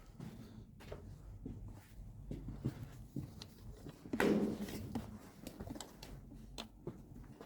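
Quiet footsteps scuffing along a gritty tunnel floor, with scattered small knocks and one louder brushing noise about four seconds in.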